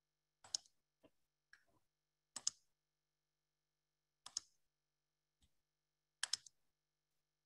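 Computer mouse clicks: four short clicks or quick double clicks, about two seconds apart.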